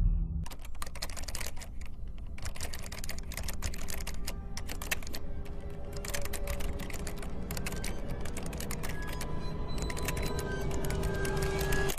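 Rapid, irregular clicking like typing on a keyboard or typewriter, over faint sustained music.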